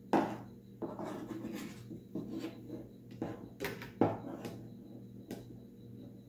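Hands handling a short PVC tube and paracord on a wooden workbench: irregular rustling and rubbing of the cord against the plastic, with two sharp knocks, one just after the start and one about four seconds in.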